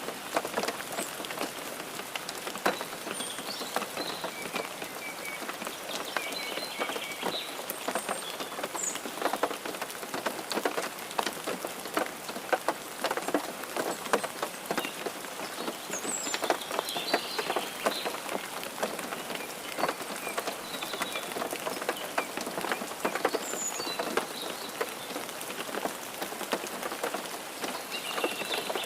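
Steady rain pattering, with many separate drops ticking on a hard surface at an even level. Faint short high chirps come through now and then.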